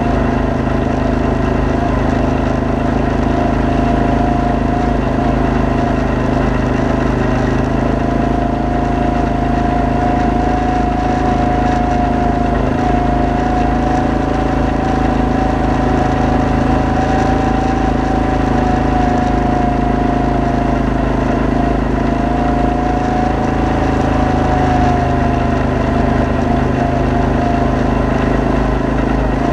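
ATV engine running steadily while the machine rides a gravel trail, with one strong high tone above the engine note that drifts slightly up and down.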